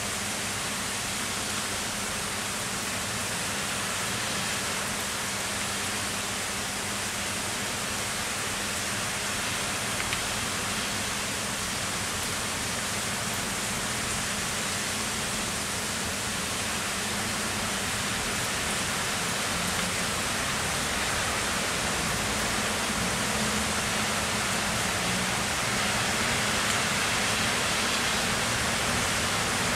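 Heavy rain falling steadily, a dense even hiss that grows a little louder in the last few seconds.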